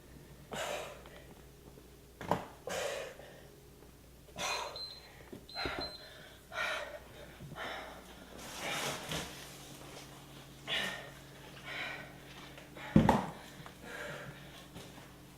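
A person breathing hard during a high-intensity exercise interval, with short forceful breaths roughly once a second. There is a sharp thump about thirteen seconds in.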